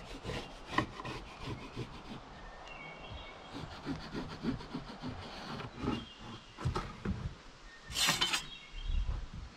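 Irregular scraping and rubbing strokes of a hand tool on wood, with a louder rasping stroke about eight seconds in.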